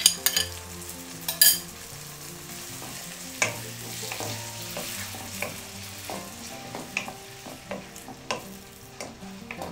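Grated tomato sizzling in hot oil with fried onions in a stainless steel wok, stirred with a wooden spatula that knocks and scrapes against the pan, with quick taps at first and then about one a second.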